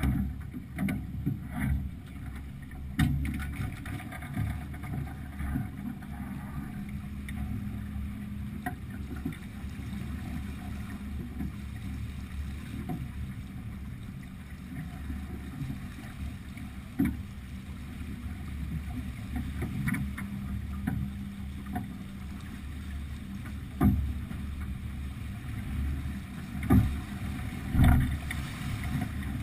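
Wind rumbling on the microphone and water rushing along the hull of a Beneteau sailing yacht under sail, with several loud thumps, most of them in the last few seconds.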